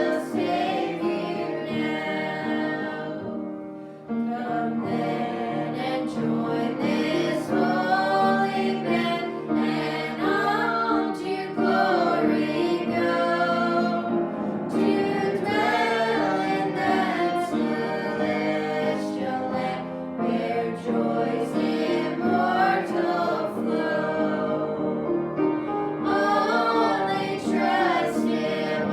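Choir singing a gospel hymn with instrumental accompaniment, with a short lull about four seconds in.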